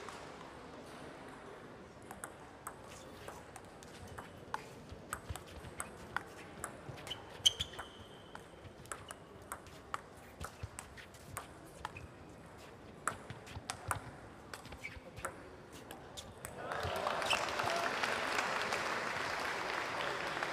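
Table tennis rally: the ball clicks against the bats and the table in a long run of quick, irregular taps lasting about fourteen seconds. Near the end the taps stop and a louder, steady rush of crowd noise takes over.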